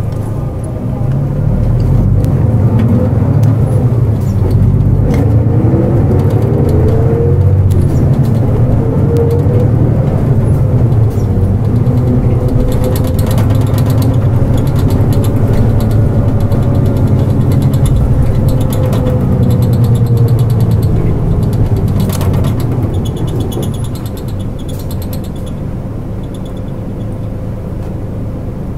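Nissan Diesel KL-JP252NAN city bus's diesel engine, heard inside the cabin, pulling away and rising in pitch through several gear changes. It then holds a steady run and eases off about 23 seconds in as the bus slows.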